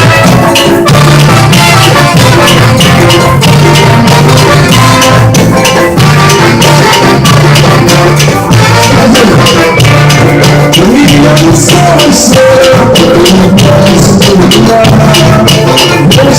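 Samba percussion group playing: drums and shakers in a dense, steady rhythm, with pitched parts over the beat.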